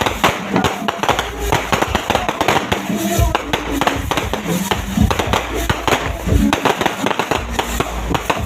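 Many fireworks and firecrackers going off at once: a dense, unbroken crackle of bangs and pops with no pause.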